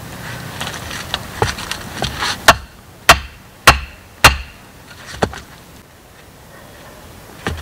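Light wooden clicks and rustling, then four loud, sharp wooden knocks about half a second apart, and two more spaced out later: a short log being split with a hatchet.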